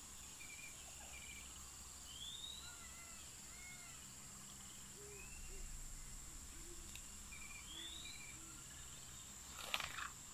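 Faint tropical forest ambience: a steady high insect drone with several birds calling over it, in short rising sweeps, buzzy repeated notes and lower arched notes. Near the end comes a brief rustling clatter.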